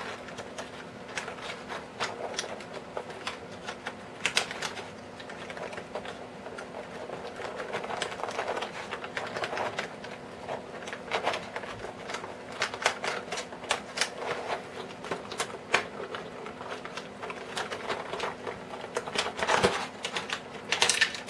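Clear plastic action-figure packaging handled while its wire twist ties are undone by hand: irregular crinkling and clicking of stiff plastic.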